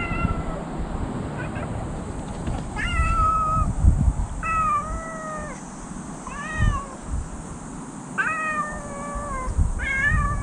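A domestic cat meowing repeatedly, about six drawn-out meows one to two seconds apart, most falling in pitch at the end. Soft low thumps sound underneath.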